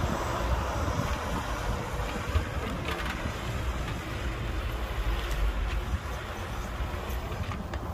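Heavy diesel earthmoving machinery running, a steady low rumble, with a sharp knock about two and a half seconds in.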